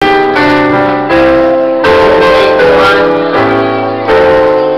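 Keyboard music: sustained chords that change about every three quarters of a second.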